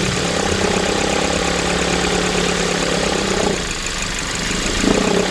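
Hyundai Grandeur HG 2.4 four-cylinder gasoline engine running at idle while its speed is lowered and raised to bring out a noise. The mechanic later traces the noise to a seized one-way clutch pulley on the alternator. The steady hum drops away about three and a half seconds in and comes back up near the end.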